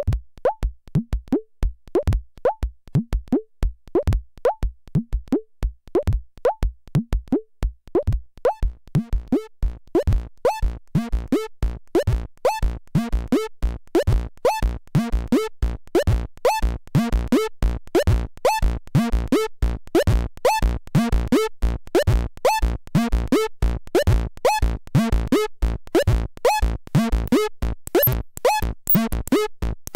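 Modular synthesizer patch through a Noise Reap Anomaly filter being pinged: a rhythmic train of short clicky hits, each with a low thump and a brief resonant ping that bends up in pitch, the pings jumping between several pitches. The hits come faster as it goes on, from about two a second to about four a second.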